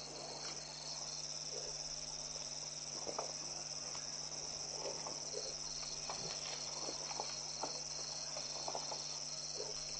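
Insect chorus: a steady high-pitched drone with a second, pulsing trill running alongside it, over scattered faint knocks and rustles.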